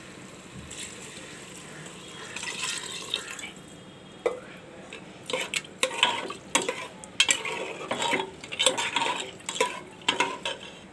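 Metal ladle stirring rice and water in a pressure cooker: irregular scrapes and clinks against the pot with sloshing. The stirring starts about halfway through, after a softer wash of sound.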